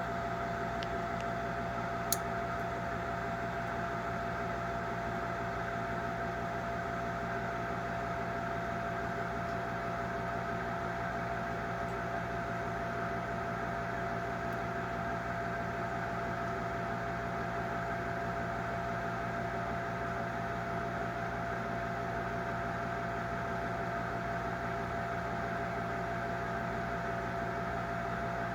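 Gibson furnace running: a steady hum with a constant mid-pitched tone, and one sharp click about two seconds in.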